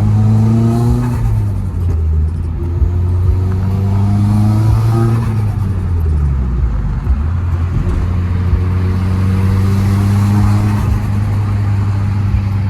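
Turbocharged SR20DET four-cylinder of a Nissan S14 Silvia kouki accelerating hard through the gears. The engine note climbs in pitch and drops back at the shifts, about a second in and again around five to seven seconds in, then climbs and holds toward the end.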